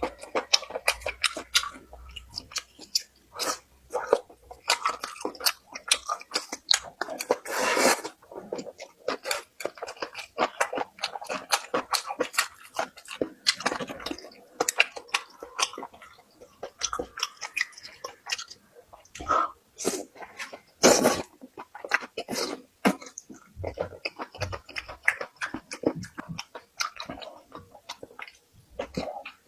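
Close-miked eating sounds of a person chewing: a rapid, irregular run of wet smacks and clicks, with louder bursts about 8 seconds and 21 seconds in.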